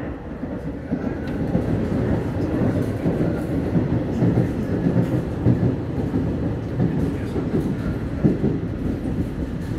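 Madrid Metro Line 9 train running, heard from inside the carriage: a steady rumble of wheels on rail with an occasional sharp knock.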